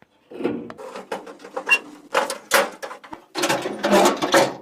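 Pickup tailgate being worked by hand after a welded repair to it: a string of irregular metal clanks and rattles, busiest about two seconds in and again near the end.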